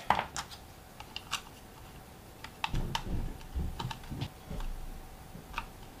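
Scattered small plastic clicks and taps as a strain-relief cap is snapped onto the plastic housing of a Sonoff Basic smart switch, with low handling thumps in the middle.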